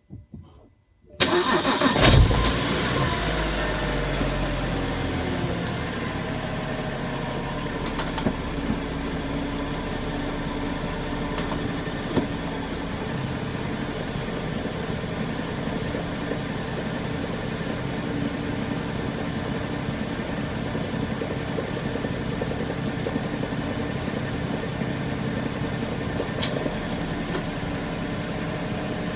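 BMW 335i turbocharged straight-six starting: it catches about a second in, flares up, and the revs fall over the next few seconds into a steady idle. A few short ticks stand out over the idle.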